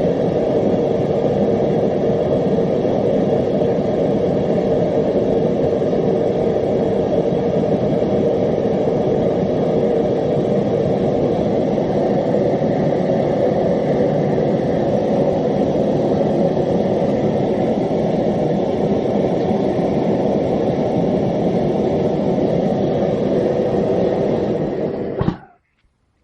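Homemade gas forge burners with MIG-tip jets firing at full run, a steady loud roar that cuts off suddenly near the end.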